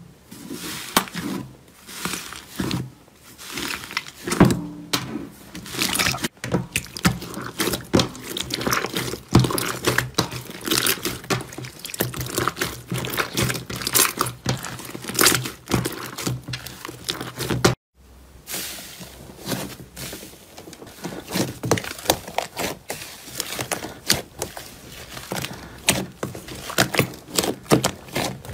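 Hands squeezing and kneading fluffy slime: dense, irregular wet squishing with crackling clicks, broken by a brief silence about 18 seconds in.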